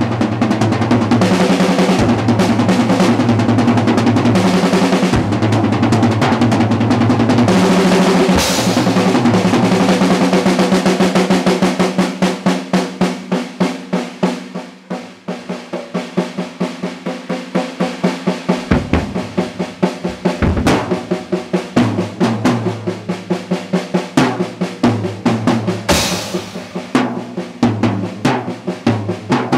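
Acoustic drum kit played solo: dense rolls around the drums with cymbal crashes for the first ten seconds or so, then thinning to fast separate strokes. A cymbal crash about eight seconds in and another near the end.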